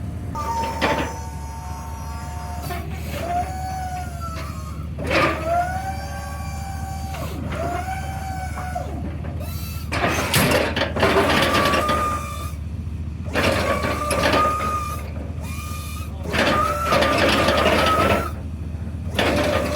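Myers snowplow hydraulic pump running in a series of short stints over a truck engine's idle hum, each stint a whine that glides up and down in pitch as the plow is raised, lowered and angled side to side. The plow is being cycled to burp the hydraulics, and the owner suspects air in the system is why it angles weakly.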